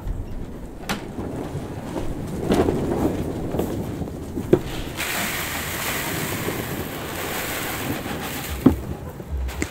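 Chicken feed poured from a plastic bucket into a feeder: a steady hiss of grain running for about four seconds in the second half, with rustling and a few sharp knocks around it.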